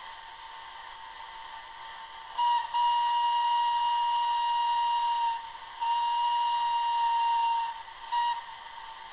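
Sound decoder of a model FS D443 diesel locomotive sounding its horn through the model's small speaker: a short toot, two long blasts of one steady pitch, then a final short toot, over a steady faint hiss.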